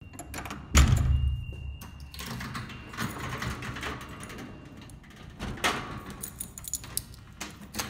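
Doors being opened and passed through: a heavy door thump about a second in, a brief thin squeak, then another sharp knock and small clicks of door hardware near the end.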